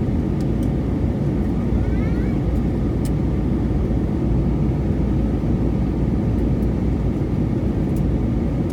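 Jet airliner cabin noise in flight: a steady, low, even roar of the engines and airflow, heard from inside the cabin.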